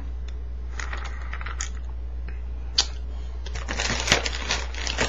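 Makeup products and their plastic cases clicking and clattering as they are rummaged through: a few scattered clicks at first, then a denser run of clatter from about three and a half seconds in, over a steady low hum.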